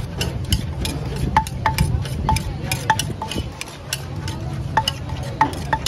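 Wooden pestle pounding in a mortar at a street food stall: a run of sharp knocks, about two to three a second, with a break of about a second past the middle.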